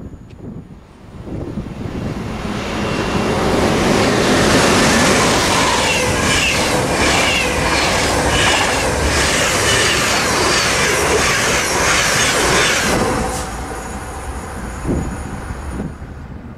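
A double-deck electric passenger train passes close by at speed. The rushing noise builds over the first few seconds and carries a rhythmic clatter of wheels over the rails at about two strokes a second, then dies away near the end.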